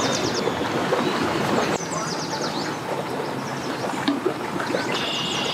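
Steady outdoor noise with a bird repeating a quick run of high, falling chirps about every two to three seconds.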